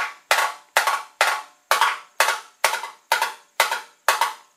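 Ball peen hammer tapping the rusted-thin steel of a 1965 Chevy frame rail, about ten strikes in a steady rhythm of a little over two a second, each ringing briefly. The hammer bounces and the metal rings almost like a drum head: the sign that the rusted steel is paper thin.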